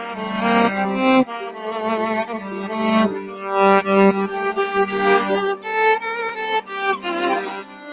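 Violin bowed with a live looping setup: a bowed melody moving over a steady held low note, with several violin lines sounding at once.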